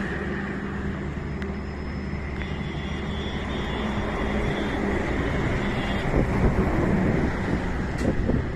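Motor-vehicle engine running steadily under a rumble of road and wind noise, getting a little louder in the last couple of seconds.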